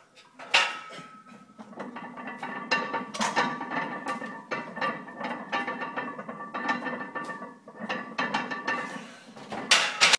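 Cast-iron weight plates clanking and rattling on a barbell during bench press reps in a steel power rack, with metallic ringing after the knocks. A sharp clank about half a second in and another near the end are the loudest.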